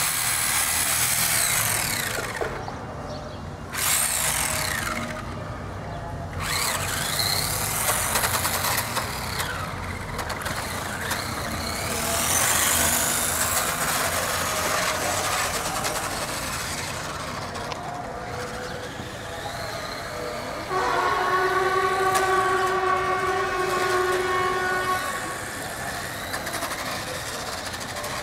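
Electric motor of an Irontrack MX400 1/4-scale RC motocross motorcycle whining, its pitch rising and falling as the throttle is worked and the bike speeds up and slows. About twenty seconds in, a steady horn-like tone comes in suddenly and holds for about four seconds.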